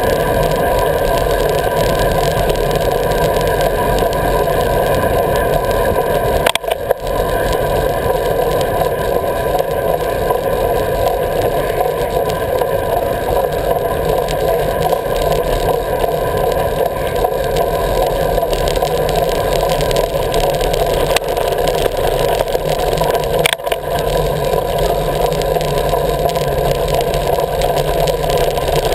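Steady wind and tyre-on-asphalt road noise picked up by a GoPro riding on a bicycle. There are two brief knocks, one about a quarter of the way through and one about four-fifths of the way through.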